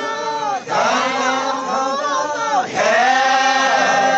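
A group of men and women chanting a folk dance song in unison, in short phrases broken by brief pauses, the last phrase ending on a long held note.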